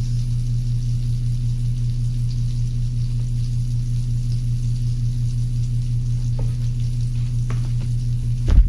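Potato pancakes frying in oil in an electric skillet: steady sizzling over a constant low hum. There are a few light clicks late on and a louder knock of a spatula at the pan near the end.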